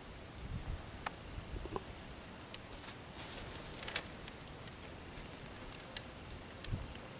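Thin bamboo fishing sticks clicking and knocking lightly against each other as they are handled and laid out on the ground, with a short rustle about three seconds in.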